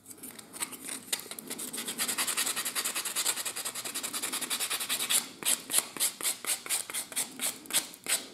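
Edge of a small laser-cut wooden part rubbed back and forth on sandpaper by hand, a dry scratchy sanding sound, taking off the dark laser residue so the edge will hold glue. From about five seconds in the strokes become short and quick, about four or five a second.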